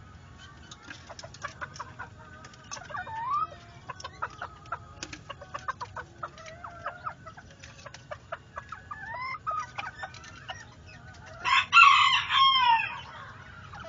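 Polish Frizzle chickens making short, soft calls among scattered clicks, then a rooster crowing once near the end, with a falling pitch, the loudest sound.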